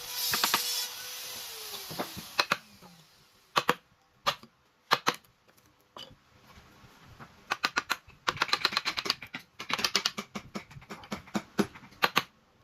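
A power tool spinning down, its pitch falling as it stops in the first few seconds. Then come scattered sharp taps, and later quick runs of rapid clicking and tapping, like work being done by hand on a piece of wood.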